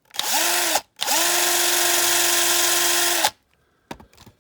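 Electric drill drilling out the rivet that holds a die-cast toy car's window glass. It gives one short run and then a longer one of about two seconds, its motor whine rising each time it spins up. A few light clicks follow near the end.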